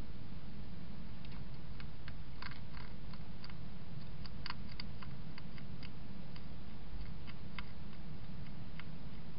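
European hedgehog eating from a dish: irregular small clicks and crunches of chewing, thickest in the first half, over a steady low hum.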